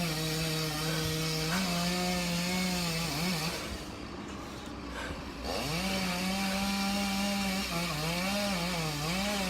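Two-stroke chainsaw running at high revs, its pitch wavering. It drops away for about two seconds in the middle, then revs up again, the pitch dipping and recovering several times near the end as the chain bites into wood.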